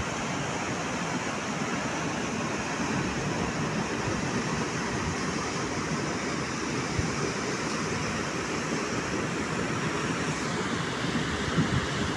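Torrential rain and muddy floodwater rushing through a flooded road, a steady even rush with no break.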